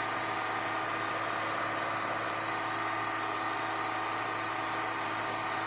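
Caterpillar 950H wheel loader's diesel engine running at a steady speed, an even hum with no change in pitch.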